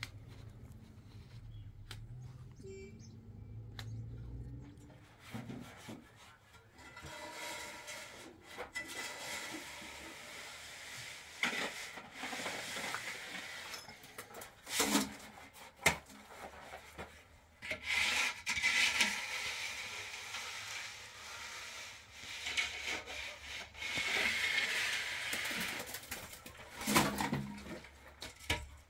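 Repeated rough scraping and rubbing strokes over a hard surface, with a few sharp knocks about halfway through and near the end.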